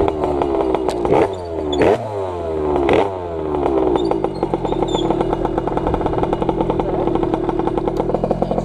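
80cc two-stroke racing scooter engine heard from on board, dropping in revs with three quick throttle blips about one, two and three seconds in. It then settles into a steady, rapidly pulsing lower running speed as the scooter rolls to a stop.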